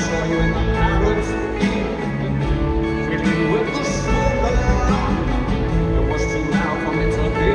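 Rock band playing a song live in an arena, heard through a phone's microphone from the crowd, with a strong bass end and occasional cymbal crashes.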